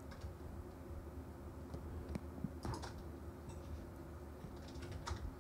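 Faint, scattered clicks of a computer keyboard and mouse over a low steady room hum.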